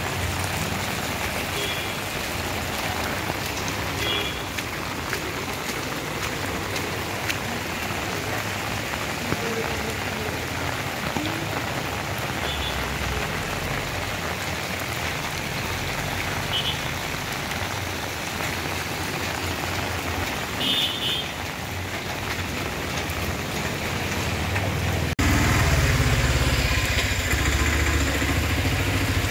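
Steady rain falling onto a waterlogged road and puddles. About 25 seconds in, it switches abruptly to a louder, closer rain sound with more low rumble.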